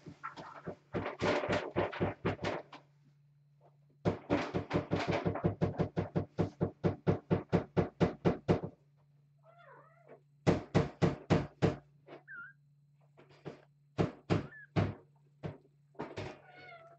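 Cat scratching and digging in a litter box: quick, even strokes of litter being raked, about four or five a second, in three runs with short pauses between. A few faint kitten mews come in the pauses.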